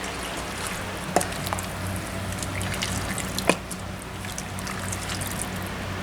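A spoon stirring beef stew ingredients in broth in an Instant Pot: liquid sloshing, with the spoon clinking against the pot about a second in and again about three and a half seconds in.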